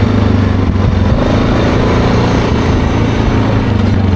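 Yamaha Grizzly 660 ATV's single-cylinder four-stroke engine running steadily under way, with rushing road and wind noise.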